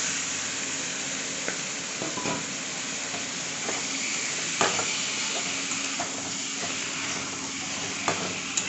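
Chicken gizzards, liver and feet sizzling in hot oil and masala in a metal kadai, stirred with a flat metal spatula that scrapes and knocks against the pan about seven times over a steady sizzle; the loudest knock comes about halfway through.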